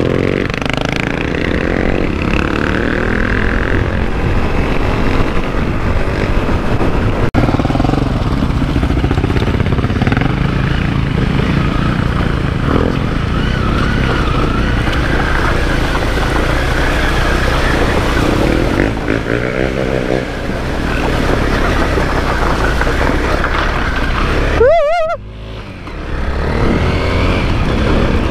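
Honda CRF250L dual-sport motorcycle's single-cylinder engine running while riding, heard from the rider's own bike, with a brief drop in level near the end.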